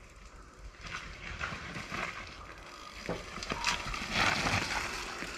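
Mountain bike rolling down a steep dirt trail: tyre noise on the soil with scattered clicks and rattles from the bike, louder in the second half.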